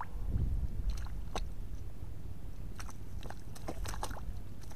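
Bare hands squelching and groping through wet mud in a shallow puddle, a scatter of short wet clicks and smacks, over a low rumble that is strongest in the first second.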